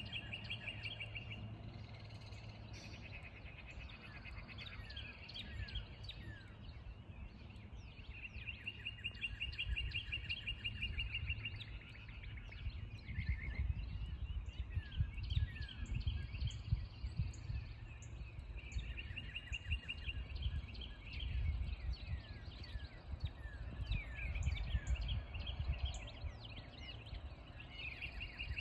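Songbirds chirping and singing, with a fast, even trill that comes back every few seconds and lasts a second or two each time, over a low, uneven rumble.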